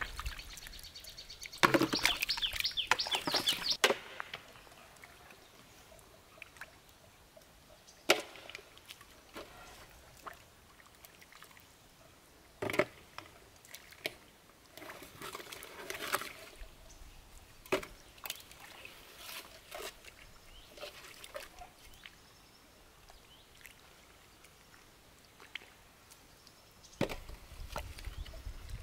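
Hands digging in wet mud and shallow water: sporadic wet squelches and sloshes, with now and then a sharp click, likely shells landing in a metal basin. The sounds are busiest and loudest in the first few seconds, then sparse.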